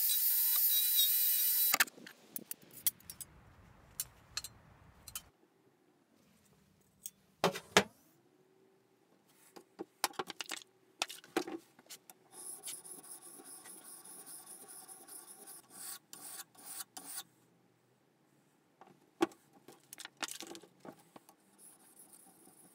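DeWalt angle grinder grinding the end of a plane iron clamped in a vise, a loud, steady high whine that cuts off about two seconds in. Scattered clicks and knocks follow, then a plane iron rubbed back and forth on a sharpening stone in steady strokes from about halfway through, with more scraping and clicks near the end.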